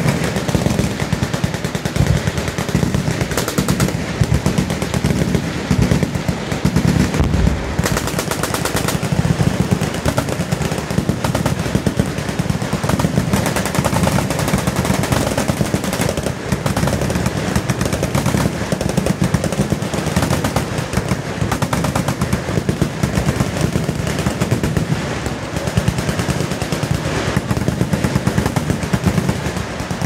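Many machine guns firing at once along a firing line: overlapping full-auto bursts that run together into one continuous racket with no pause.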